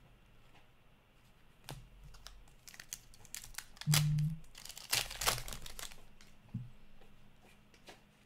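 Crinkling and tearing of a trading-card pack's wrapper, loudest in a dense stretch about halfway through, between light clicks of cards being flipped.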